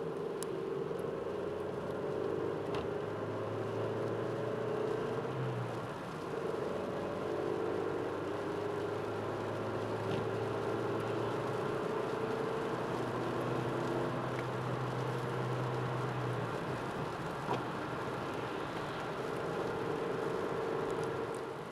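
Steady road noise heard from inside a moving car: a low engine hum under the hiss of tyres on a wet road, with a few faint ticks.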